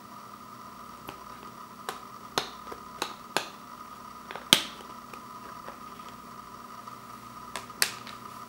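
Sharp plastic clicks from a Blu-ray case's centre hub and tray as a disc is pressed and pried free: about eight clicks, the loudest about halfway through and two more near the end. A faint steady tone runs underneath.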